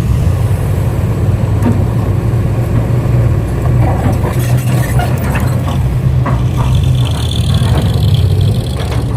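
Engine running steadily with a low hum, with scattered knocks and clatter through the middle.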